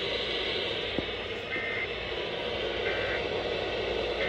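Steady hiss of radio static from a broadcast receiver, with three short, faint beeps about a second and a half apart.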